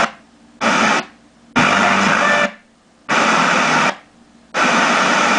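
Radio static hissing in short bursts, about five, each under a second long, cutting in and out abruptly with quiet gaps between: interstation noise from a radio tuner played through a Yamaha AX-592 stereo amplifier as the tuner moves between stations.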